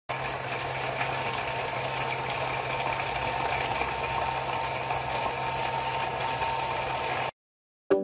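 Steady splashing of thin water jets spraying from a perforated pipe into a plastic bottle, over the low steady hum of a 3 V submersible mini water pump. It cuts off suddenly about seven seconds in.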